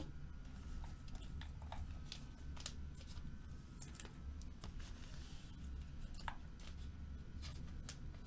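Faint scattered clicks and light rustles of trading cards and their plastic holders being handled and gathered up, over a low steady hum.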